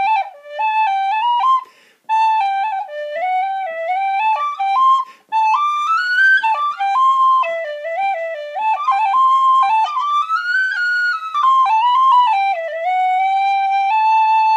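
Metal tin whistle playing a jig solo in quick running notes. There are two brief breaks for breath, about two and five seconds in, and the tune ends on a long held note.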